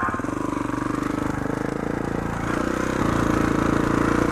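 Kawasaki KX450 dirt bike's single-cylinder four-stroke engine running steadily at low revs, getting a little louder about three seconds in.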